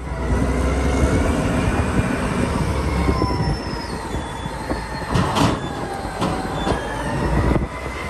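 Caterpillar 992C wheel loader's diesel engine running under load, with a heavy rumble and thin whining tones that slowly rise and fall. A little after five seconds there is a short burst of noise as the bucket's load falls into the truck trailer.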